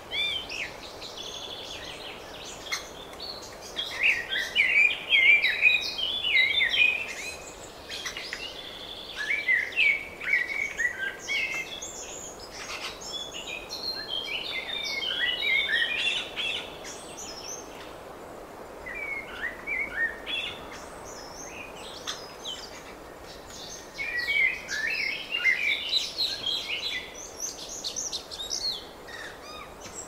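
Several songbirds singing and chirping in bursts of quick high twittering phrases, with short pauses between, over a faint steady hiss.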